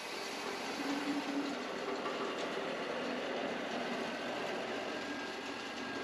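Wood-Mizer LT40 Wide portable bandsaw mill running steadily as its saw head travels down the bed, sawing a sycamore log.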